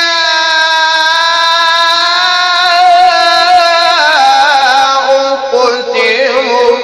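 Melodic Quran recitation (tilawah) by a single male reciter: he holds one long, high vowel for about four seconds, then moves into a wavering, ornamented run that steps down in pitch.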